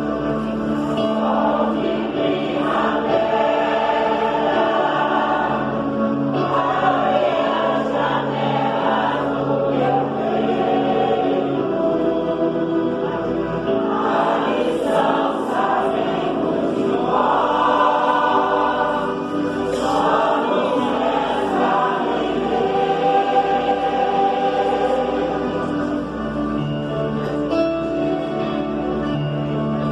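A mixed choir singing with instrumental accompaniment.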